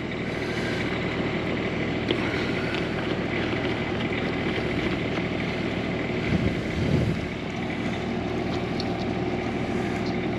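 An RV's quiet diesel generator running steadily, a low even engine hum. There are a few faint metallic ticks as a brass blowout adapter is threaded into the city water connection, and a brief low rumble about six and a half seconds in.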